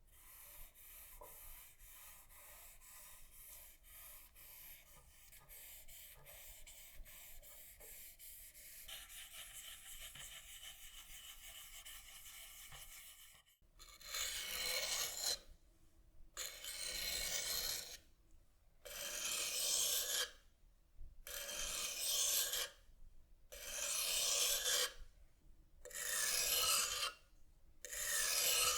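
Abrasive rubbing on the knife by hand: faint, steady scratching at first, then about halfway through loud, even back-and-forth strokes, one every two seconds or so.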